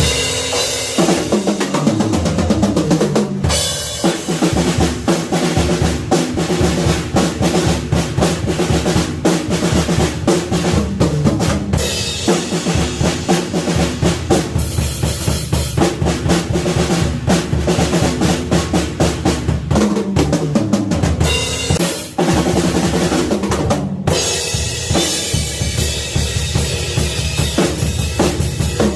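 Drum kit played in a steady groove of bass drum, snare and cymbals over a backing song, by a drummer about six months into learning. It breaks off briefly about three-quarters of the way through.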